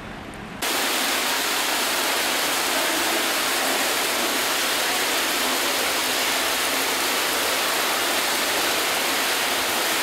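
Water jet from a pool's fountain nozzle splashing steadily into a swimming pool, starting abruptly about half a second in.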